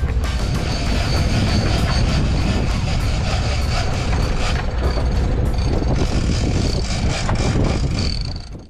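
Boat engine running steadily with rushing wind and water noise over it, fading out at the very end.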